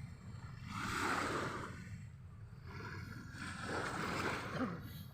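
Small waves washing in: a rushing wash that swells and fades twice, about three seconds apart, over a steady low rumble.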